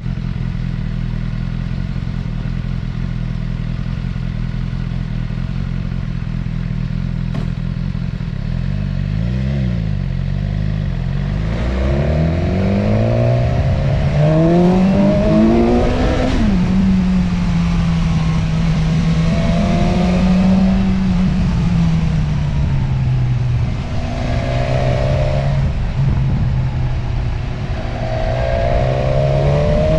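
Motorcycle engine running steadily for about ten seconds, then climbing and falling in pitch again and again as it accelerates and changes gear.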